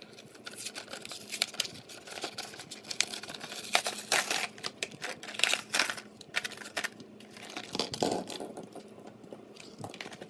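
Plastic blister pack crackling and crinkling as it is pried off its cardboard backing by hand, with irregular snaps that are busiest around the middle.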